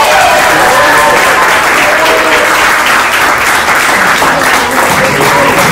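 A room of people applauding steadily, with a few voices calling out over the clapping in the first couple of seconds.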